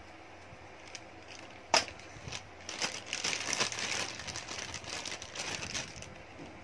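A single sharp knock, then about three seconds of crinkling and rustling of plastic packaging as small accessories are handled.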